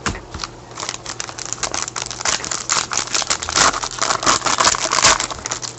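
Trading cards and their plastic packaging being handled: a busy, irregular run of crinkling, rustling and light clicking as cards are shuffled through.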